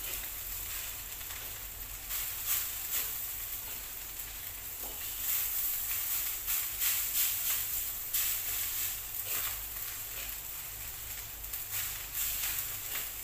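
Food sizzling in a wok while it is stir-fried with a wooden spatula. A steady hiss runs throughout, broken by repeated short scrapes and knocks of the spatula against the pan.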